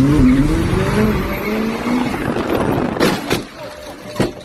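Car engine revving and rising in pitch as it accelerates, heard from inside the cabin, then several sharp knocks and bangs about three seconds in, as the car goes out of control.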